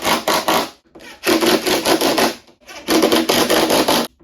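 Hand sanding: rapid back-and-forth abrasive rubbing strokes, about five a second, in three runs with short pauses between them.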